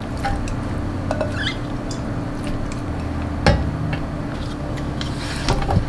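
Kitchen tongs clacking and scraping against a ceramic bowl as slices of blanched beef are pushed into a stainless steel tray. A sharp knock comes about three and a half seconds in and a few clicks near the end, over a steady low hum.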